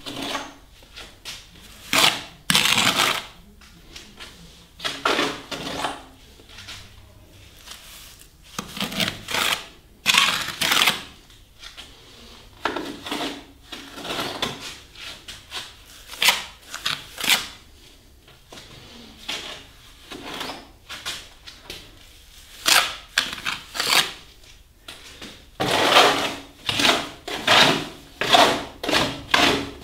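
Steel trowel scraping and slapping fresh plaster onto a masonry door reveal, in repeated irregular strokes of about a second or less.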